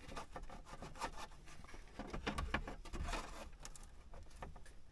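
Dashboard trim being handled and worked back into place: irregular rubbing and scraping with scattered short clicks and knocks.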